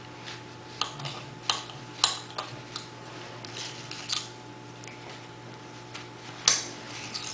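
A knife cutting baked choux cream puff shells in half, heard as scattered light knocks and crisp cuts, the loudest about six and a half seconds in, over a faint steady low hum.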